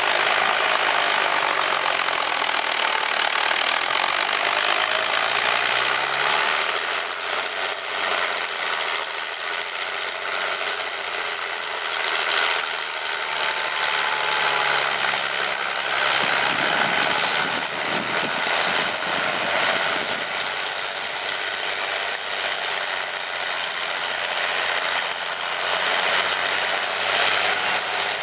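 Case IH 956 XL tractor's diesel engine running steadily under load as it pulls a reversible plough through heavy mud, with a steady high whine over the engine noise.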